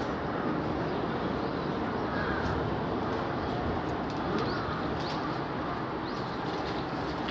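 Steady outdoor background din with a few faint, short, high bird chirps scattered through it.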